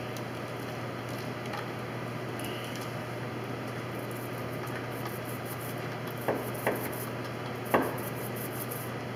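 Three light knocks from hand work on fittings inside a wooden boat's cockpit, two close together about six seconds in and a louder one near eight seconds, over a steady low hum.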